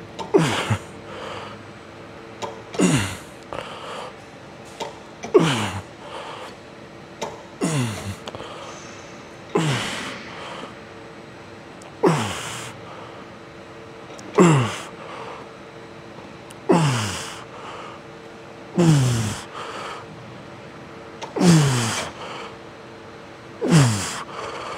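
A man breathing out hard with a falling groan on each rep of a leg extension set, about every two and a half seconds, eleven times. A faint steady hum runs underneath.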